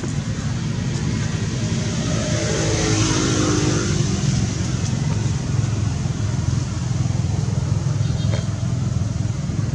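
Steady low rumble, with a motor vehicle passing about three seconds in: the sound swells and its engine note falls in pitch as it goes by. A brief high squeak comes near the end.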